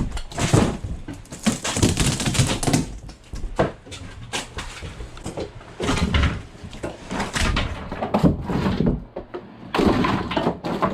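Hand demolition: boards and wall material being pried off and broken, making an irregular string of knocks, cracks and clatters.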